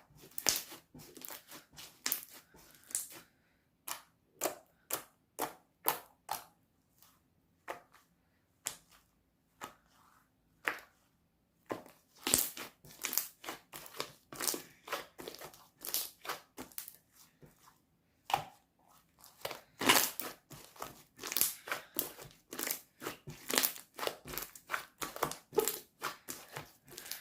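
Peach slime being squeezed and pressed by hand, giving irregular runs of sharp clicking and crackling pops with short pauses between handfuls.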